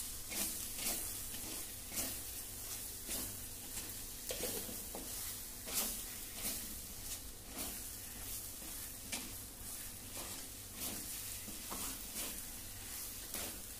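Onion-and-coconut masala paste sizzling in oil in an earthenware pot while a wooden spatula stirs and scrapes through it: a steady high sizzle broken by frequent, irregular scrapes and soft knocks of the spatula.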